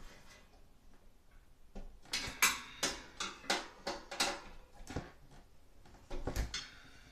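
Screwdriver and hands clinking and rattling against the sheet-metal housing of a Broan 655 bathroom heater and exhaust fan: a quick run of about a dozen sharp metallic clinks over roughly three seconds, then a duller knock near the end.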